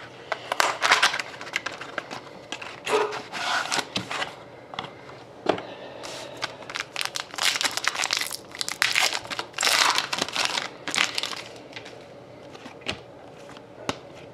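Trading card packaging being torn and crinkled open by hand: repeated rustling bursts of wrapper and cardboard, quieter near the end.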